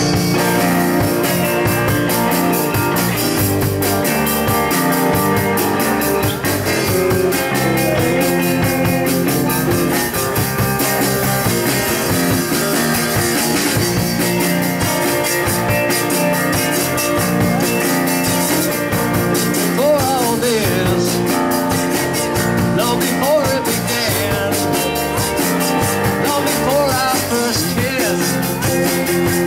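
A live rock band playing an amplified song on electric guitars and drums, with a steady beat.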